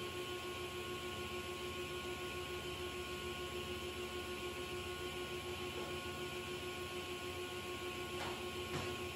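Altendorf sliding panel saw running between cuts, a steady hum with a constant high whine, with a faint knock near the end.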